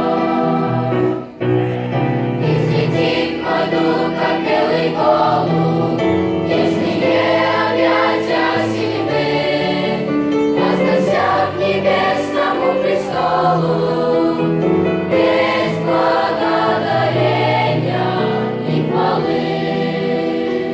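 Children's choir singing a Russian Christian song, with one brief break in the singing about a second in.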